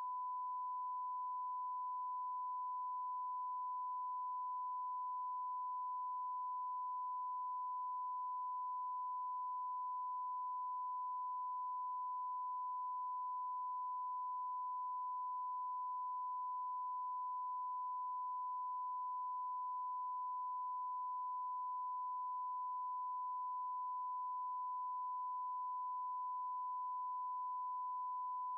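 One continuous pure electronic tone, held at a single steady pitch with no break and no change in loudness.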